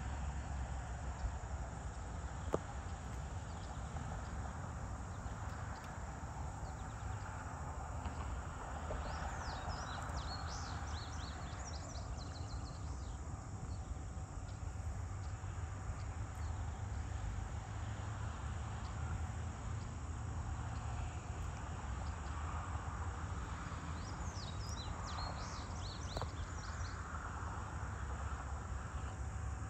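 Summer evening rural ambience: a faint chorus of insects over a steady low rumble, with two short runs of quick high chirps, one about ten seconds in and one near the end.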